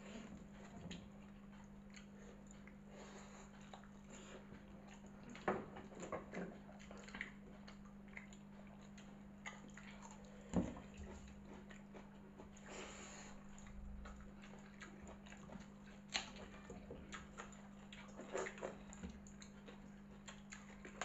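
Hands mixing and scooping watery fermented rice (pakhala) in steel bowls, with soft wet squishing, chewing and a few sharp clicks against the metal, over a steady low hum.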